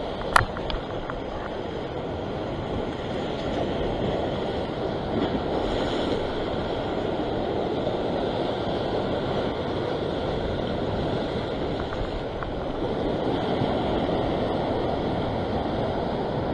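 Sea surf washing over a rock ledge, with wind buffeting the microphone. A single sharp click about half a second in.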